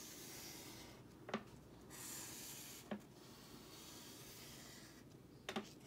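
Felt-tip marker drawn across construction paper: faint scratchy rubbing in several long strokes, with a few brief ticks in between.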